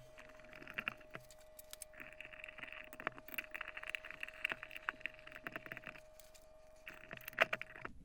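Hand screwdriver fastening a microwave oven transformer to its metal base plate: scratchy stretches of screws turning, with small metallic clicks and taps of tool handling. A faint steady tone sounds underneath.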